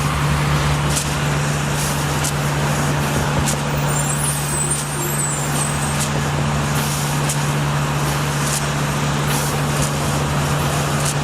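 A large engine running steadily with a constant low hum, under broad noise and scattered light knocks; the hum cuts off at the very end.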